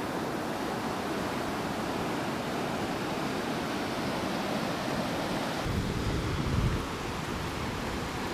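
Surf breaking and washing up a sandy beach, a steady rush of waves, with a brief low rumble a little over halfway through.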